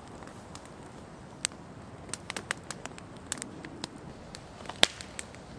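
Wood campfire crackling, with irregular sharp pops and one louder pop near the end.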